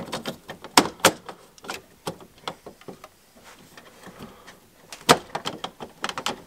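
GE dual-function AFCI/GFCI breaker being worked and snapped into its slot in a breaker panel: sharp plastic-on-metal clicks and clunks. The loudest come in a cluster about a second in and again near the end, with lighter rattles of the breaker and its wires between.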